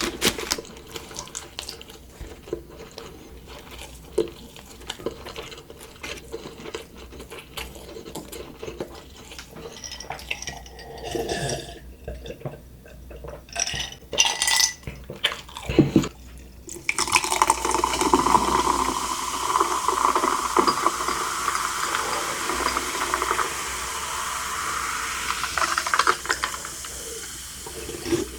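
Close-miked eating sounds, with scattered clicks, rustles and chewing, then about two-thirds of the way in a steady rush of running or pouring liquid that lasts about ten seconds and stops near the end.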